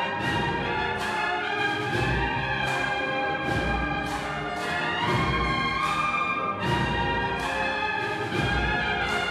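A Spanish cornet and drum band (banda de cornetas y tambores) playing a Holy Week procession march: valved bugles carry the melody in chords over snare and bass drums, with sharp drum strokes about twice a second.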